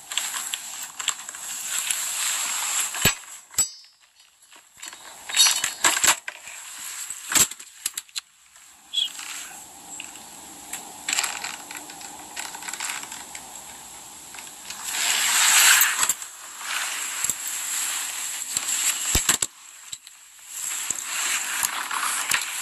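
Rustling and crackling handling noise with scattered sharp clicks from a handheld phone being carried and moved about, and a faint steady hum through the middle stretch.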